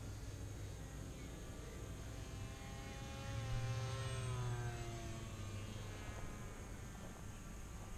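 3D-printed radio-controlled model plane's motor and propeller whining as it flies past overhead, loudest about halfway through, then dropping in pitch and fading as it moves away.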